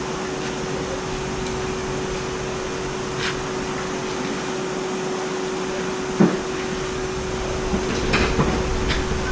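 Steady churning of water and hum of paddle aerators running in a prawn pond, with one constant tone under the noise. A brief sharp sound stands out about six seconds in.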